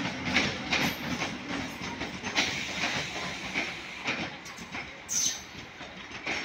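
Sealdah–Godda MEMU electric passenger train arriving, its wheels clattering over rail joints in an uneven run of clicks over a steady rumble, growing quieter as it goes. A brief high squeal comes about five seconds in.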